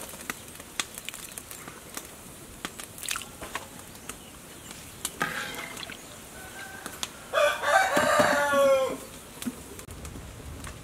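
Rooster crowing: a brief call about five seconds in, then one long crow a couple of seconds later. Scattered light clicks from a metal ladle stirring a boiling pot run beneath.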